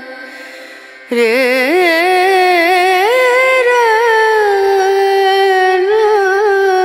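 Background song: a single voice singing long, wavering held notes. It is quieter for the first second, then comes back in strongly.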